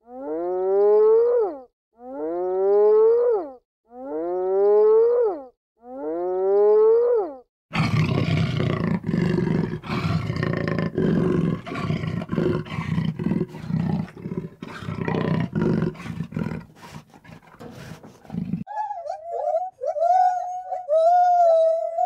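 Animal calls in three parts: four identical rising calls about every second and a half, then about eleven seconds of a rough, noisy growling call, and in the last few seconds a wavering, whining call.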